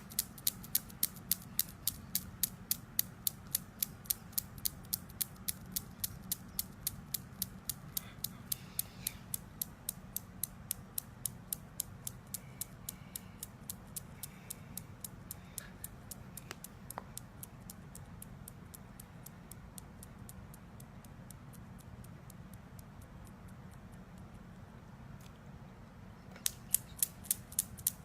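Rapid, evenly spaced mechanical clicking, about three clicks a second, over a low steady hum. The clicks fade out about two-thirds of the way in and start again near the end.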